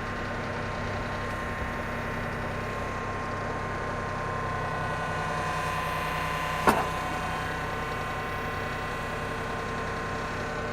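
Mahindra Max series compact diesel tractor engine running steadily, with one sharp knock about two-thirds of the way through.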